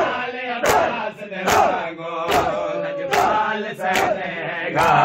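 Crowd of mourners doing matam, striking their bare chests with open hands in unison. There are about seven sharp slaps, roughly one every 0.8 seconds, with a crowd of men chanting and shouting between the strikes.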